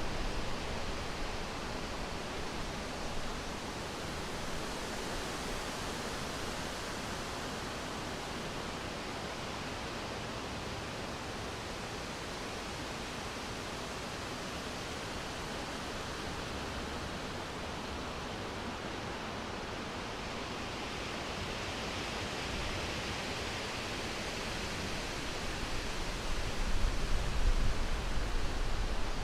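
Wind blowing through summer forest foliage: a steady rushing of leaves that swells into stronger gusts near the end.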